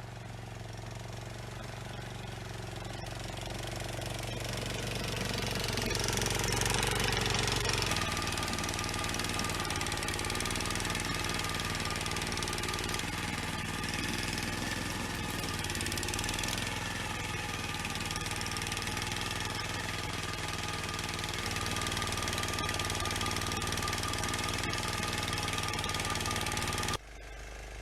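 An engine running steadily, building up over the first several seconds and changing note about eight seconds in, then holding an even pitch until it cuts off abruptly near the end.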